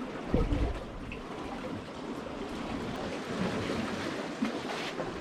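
Seawater lapping and trickling among harbour rocks, with a single dull thump about half a second in.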